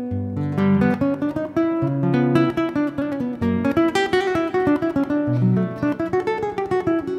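Acoustic guitar music: plucked notes and strummed chords over a line of low bass notes that keeps moving.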